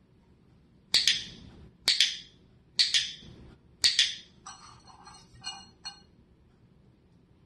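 Dog-training clicker clicking four times, about once a second, each a quick double click (press and release), marking the puppy's nose touches to the hand. Then treats rattle and clink in a stainless-steel cup with a bright metallic ring for about a second and a half.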